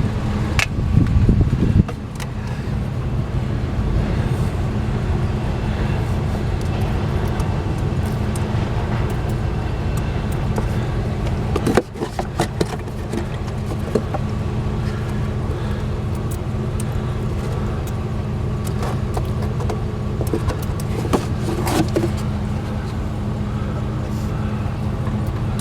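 A steady low engine drone, with a few sharp metallic clicks and knocks from parts being handled.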